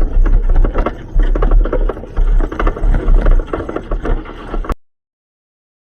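Hyundai Excel rally car running, heard from inside the car, with a low uneven rumble and many knocks and rattles. The sound cuts off abruptly about three-quarters of the way through.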